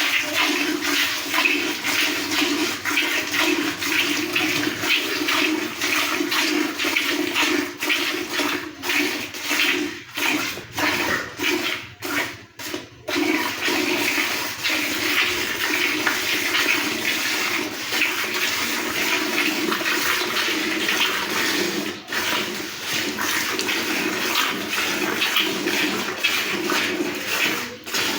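A cow being milked: a steady, continuous splashing hiss of milk streams going into a pail, dipping briefly about ten to thirteen seconds in.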